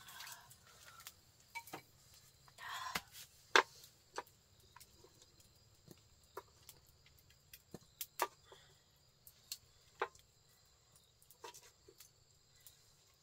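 A utensil tapping and scraping against a metal pot and a ceramic bowl as food is dished out: scattered sharp clicks, the loudest about three and a half seconds in, just after a short scraping rustle.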